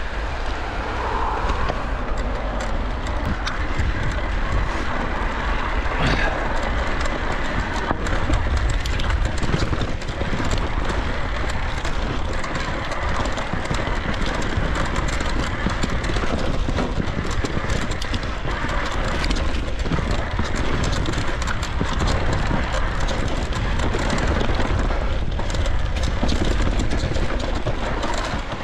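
Electric mountain bike ridden along a rough forest trail: steady wind rumble on the microphone with a constant scatter of small clatters and knocks as the bike runs over the ground.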